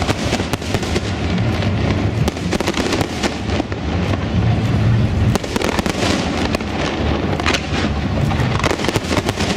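Fireworks display: aerial shells bursting in quick succession, a dense run of sharp bangs and crackling over a steady low rumble.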